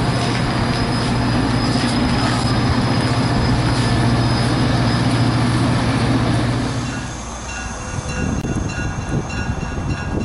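MBTA diesel commuter train pulling out, its passenger coaches rolling past close by with a steady low hum and rumble. About seven seconds in the sound dips and changes abruptly; after that the moving train carries several thin, high squealing tones from its wheels.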